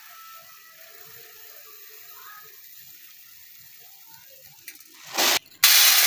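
Dry split urad dal pouring from a plastic bag into a ceramic bowl with a steady soft hiss, then tipped from the bowl onto a metal tray in two louder rushes about five seconds in.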